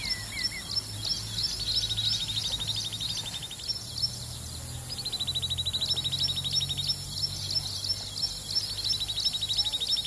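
Common babbler calling: a rapid, high trill in runs of about two seconds with short pauses between, with separate high chirps about three a second over it and a steady low hum underneath.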